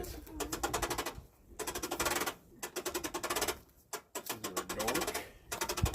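Pop-up camper lift crank mechanism clicking rapidly while it is being turned, in several bursts with short pauses. Its brake gear has had teeth ground off.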